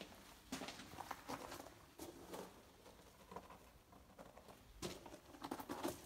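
Irregular scuffs and scrapes of a person shuffling through a narrow rock tunnel, boots and body brushing gravel and rock, in short bursts with a boxed-in sound; a busier cluster of scuffs comes near the end.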